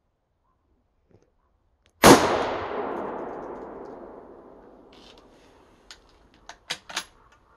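A single shot from a CZ 527 Varmint bolt-action rifle in .223 Remington: a sharp crack about two seconds in, its echo fading away over about three seconds. Near the end come a few short metallic clicks as the bolt is worked.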